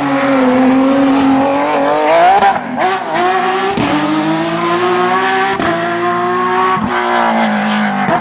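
Porsche flat-six rally engine pulling hard under acceleration, its pitch climbing and dropping back sharply at several quick upshifts.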